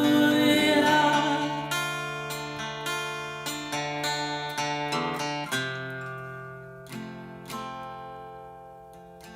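Hymn accompaniment between verses: a held chord fades in the first second or so, then an instrumental interlude of sharply attacked notes and chords follows, each ringing and decaying, and the music grows steadily quieter toward the end.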